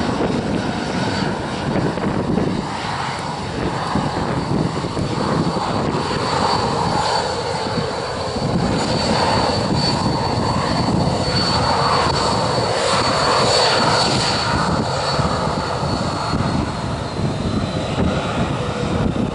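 Boeing 737-700's CFM56-7B turbofan engines running at taxi power: a steady high whine over a continuous rumble, the whine dropping slightly in pitch near the end as the jet moves past.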